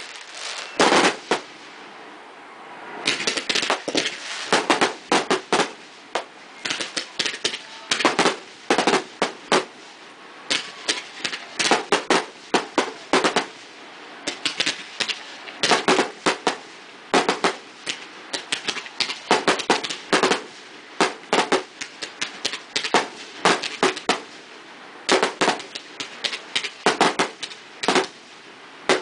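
Fireworks display: aerial shells bursting in a dense barrage of sharp bangs. The bangs come in quick clusters of several reports, with short lulls between.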